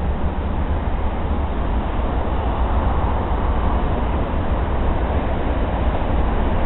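Wind blowing steadily and buffeting the camera microphone with a deep, even rumble and rush.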